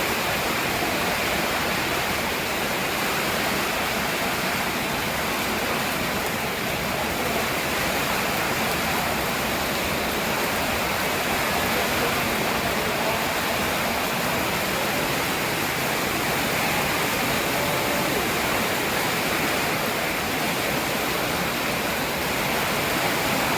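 Heavy storm rain pouring down, a steady dense hiss of water that holds an even level throughout.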